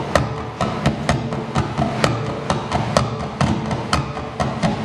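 A live band playing a song: strummed acoustic guitar and electric bass over drums, with a steady beat of about two strikes a second.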